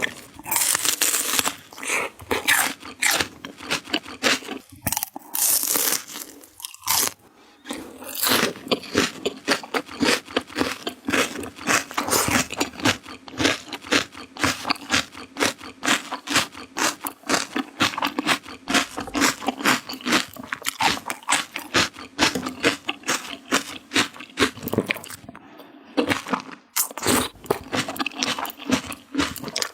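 Crunching and chewing of crisp raw vegetables, rapid crisp bites and chews one after another, with brief pauses twice.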